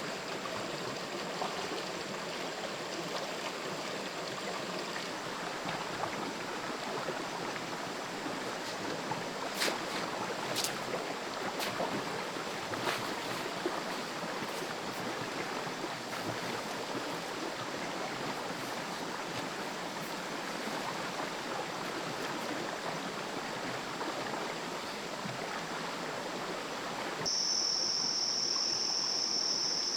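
Forest stream flowing steadily, with a few faint clicks about ten to thirteen seconds in. Near the end a steady high insect trill starts abruptly over the water.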